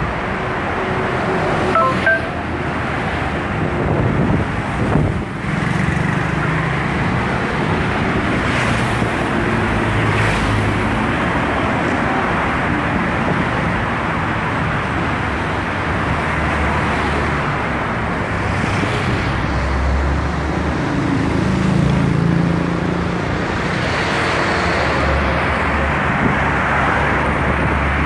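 Steady road traffic noise: cars passing on a busy multi-lane road, a continuous rush of tyres with a low engine rumble.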